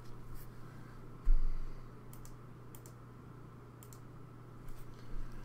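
Football trading cards being handled with gloved hands: scattered light clicks and a dull thump just over a second in, over a steady low hum.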